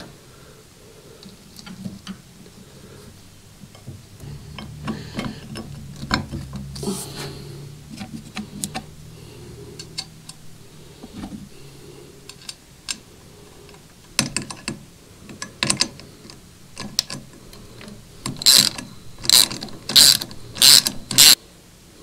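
Ratchet wrench clicking as the engine guard's mounting bolts are tightened, in scattered strokes and then a run of about six loud ones near the end.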